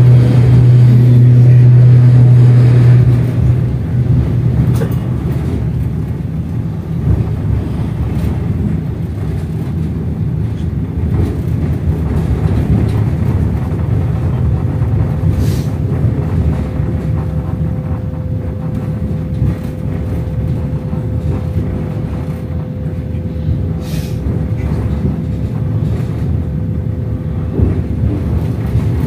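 Running noise of a moving passenger train: a steady low rumble of the wheels on the rails. A loud low hum sits over it for the first three seconds and then fades, and a faint steady tone joins about halfway through.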